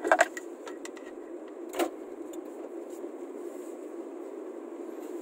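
Steady running noise inside a moving car's cabin, with a few sharp clicks and knocks: the loudest right at the start, another about two seconds in.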